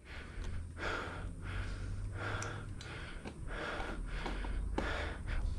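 A person breathing hard, about one breath a second, over a steady low rumble.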